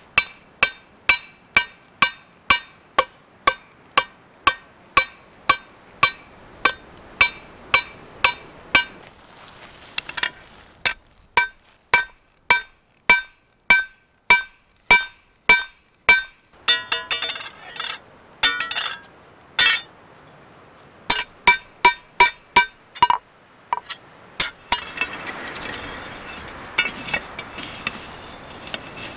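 Hammer forging a red-hot mild steel arrowhead on a steel block anvil: steady blows about two to three a second, each with a short metallic ring, in runs broken by short pauses, with a spell of quicker, lighter clinks partway through. Near the end the blows stop and a steady rushing noise takes over.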